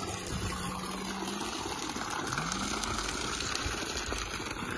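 Water gushing steadily from the upright outlet pipe of a 3 HP solar-powered pump and splashing onto muddy ground.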